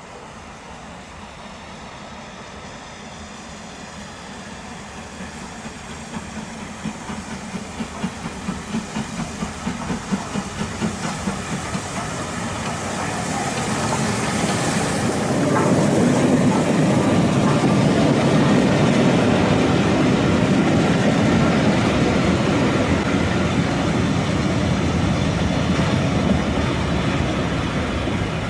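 LMS Stanier Black Five 4-6-0 steam locomotive No. 44871 approaching under steam, its exhaust beats growing steadily louder at about two and a half a second. From about fourteen seconds in, as it passes close by, a loud, steady rumble and clatter of the engine and its coaches' wheels on the rails.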